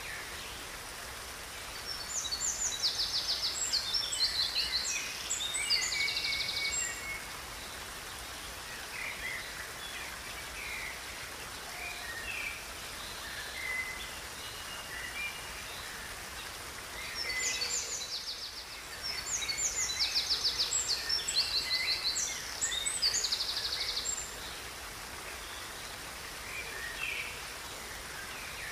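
A songbird sings two bouts of rapid, high trills and chirps about fifteen seconds apart, over the steady rush of a river.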